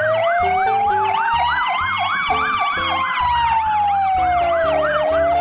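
Two fire engine sirens sounding together: a slow wail that rises for about two and a half seconds and then falls, over a fast yelp sweeping up and down about three times a second.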